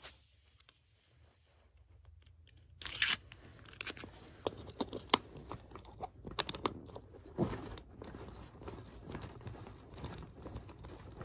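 Hands working at an RC truck's wheel and large rubber tire close to the microphone: scattered clicks, scrapes and rubbing, starting about three seconds in after near silence.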